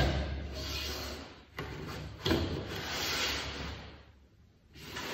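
Corrugated cardboard being handled: rubbing and scraping as boxes and flaps slide against each other, with a sharp tap about a second and a half in and a thud shortly after, then a brief pause near the end before the rubbing resumes.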